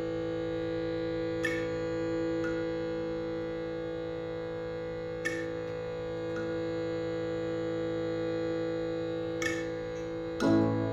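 Slow, calm layered instrumental music: a steady free-reed drone from a shruti box or accordion, with a single plucked note every few seconds. A louder chord comes in near the end.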